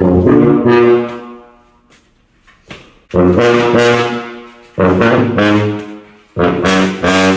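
A marching band's brass section playing loud held chords in four separate blasts, each starting sharply, with short gaps between them.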